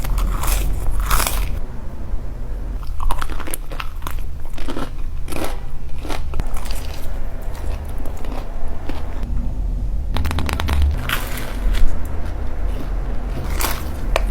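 Close-miked crunching bites and chewing of crispy fried chicken, in irregular bursts. The loudest crunches come about three seconds in and again near the end, over a steady low hum.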